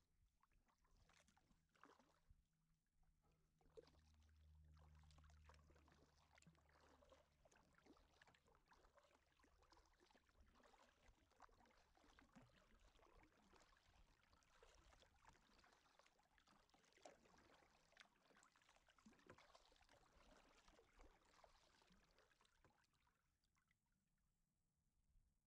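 Faint kayak paddling: the paddle dipping and water splashing and dripping in irregular small splashes, fading out near the end.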